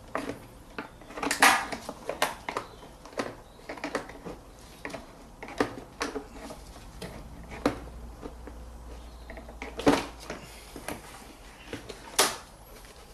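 Irregular plastic clicks and knocks from the Volvo V70's airbox and intake hose being pulled loose and handled, with louder knocks about a second and a half in, near ten seconds and near the end.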